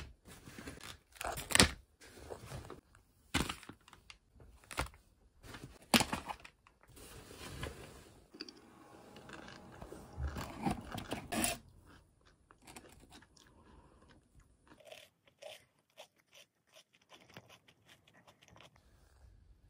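Pringles potato chips being crunched and chewed, in irregular crunches that come fainter and closer together in the second half.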